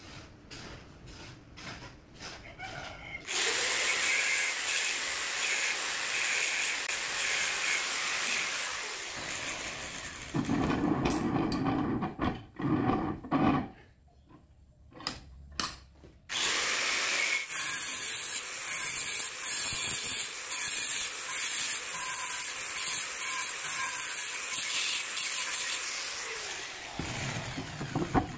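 Metalworking power tools running in long, loud, steady stretches. The running breaks off about halfway through for a quieter spell of clicks and knocks from handling the metal part.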